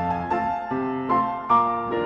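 Background piano music, notes struck one after another about every half second and left to ring.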